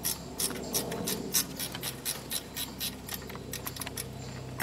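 Hand ratchet wrench clicking in quick, uneven strokes, about three to four clicks a second, as an engine mounting bolt is turned. A steady low hum sits underneath.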